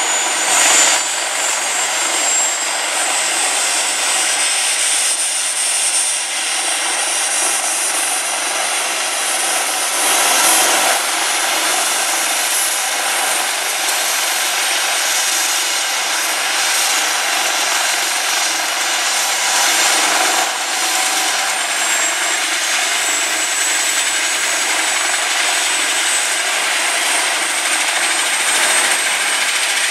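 Airbus H225M helicopter's twin turboshaft engines running and its main rotor spinning up: a steady, loud rush of noise with a high turbine whine that slowly rises in pitch.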